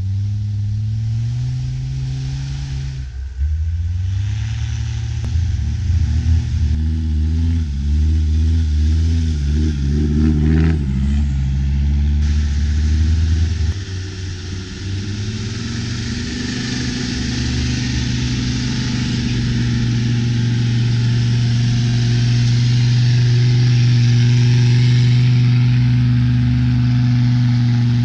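Off-road 4x4 engine revving up and down under load while driving through snow, then holding a steady drone from about halfway, with a hiss of tyres and snow above it.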